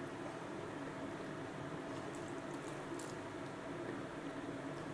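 Plastic scoop ladling and pouring thick syrup over pitha soaking in a bowl: faint liquid trickling and dripping with a few light ticks, over a steady low background hum.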